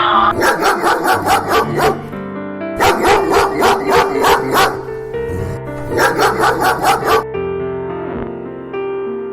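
A dog barking in three quick runs of sharp, yappy barks, about five barks a second, over background piano music.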